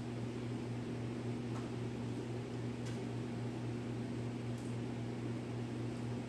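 Steady low electric hum with a fan-like rush behind it, from running workshop equipment; a few faint ticks.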